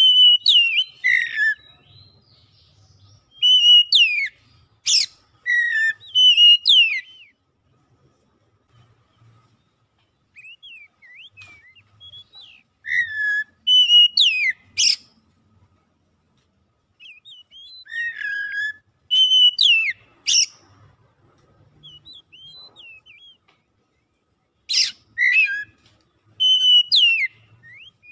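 Oriental magpie-robin singing: loud bursts of whistled phrases with sharp upward sweeps and falling notes, separated by pauses of a few seconds.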